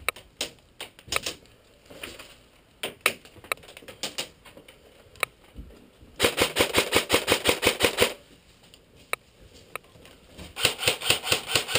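Airsoft rifle firing in full-auto bursts, a fast even rattle of about ten shots a second, one burst of about two seconds past the middle and another near the end, with scattered single snaps of shots before them.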